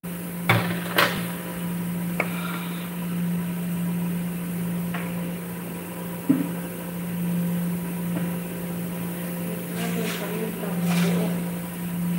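A steady low kitchen machine hum, with scattered sharp clicks and knocks as a cupboard is opened and a spice jar is handled.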